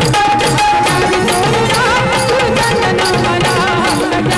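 Live Indian folk-style song music: a steady, quick drum rhythm under a held melody line that wavers in pitch.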